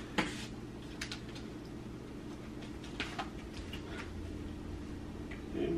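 Quiet room with a few faint, short clicks and rustles, the first a moment in and two more around three seconds in.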